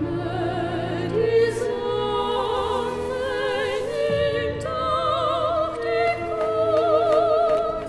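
Trailer score of sustained operatic singing, several voices holding long notes with wide vibrato.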